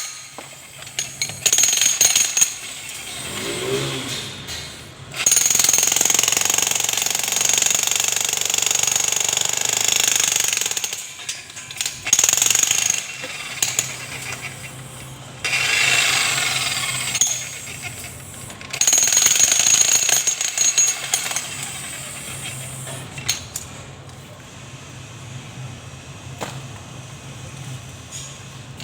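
Makita electric demolition hammer chiselling into a concrete column, running in bursts of a few seconds with short pauses between. It goes quieter for the last several seconds.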